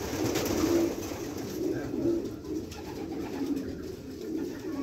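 Homing pigeons cooing together: a steady stream of low, overlapping coos from several birds.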